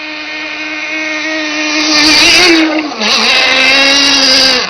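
RC gas boat's engine running at high revs, a steady buzzing note that grows louder. Its pitch dips briefly about three seconds in, then it holds steady again and stops abruptly near the end.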